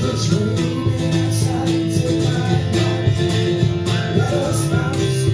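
Live band playing an instrumental break of a song, with strummed guitar, a melodic lead line that bends in pitch, and a steady beat.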